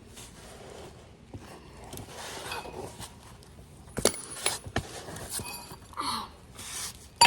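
Metal hand tools clinking and rattling as they are handled, with a sharp click about four seconds in and a loud ringing metallic clink at the very end.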